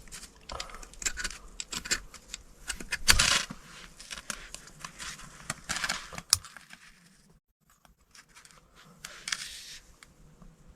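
Irregular rustling, scraping and clicking, as of something being handled and moved, with louder bursts about three and six seconds in and a brief near-silent pause shortly after.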